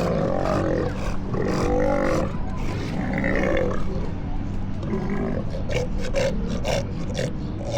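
South American sea lions calling with harsh, deep roars, several overlapping calls, loudest in the first few seconds.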